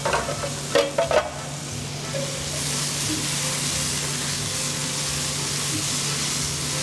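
Butter sizzling in a hot sauté pan of chopped vegetables as it is stirred with a silicone spatula, melting down as the fat for a roux. The sizzle rises about two and a half seconds in and then holds steady.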